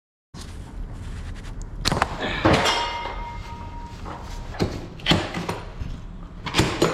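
A run of knocks and clatter from hard objects being handled, with a short metallic ring about two and a half seconds in.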